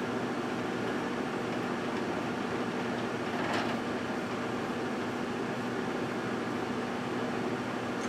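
GE Dual Wave microwave oven running: a steady electrical hum with fan noise. There is one brief click about three and a half seconds in.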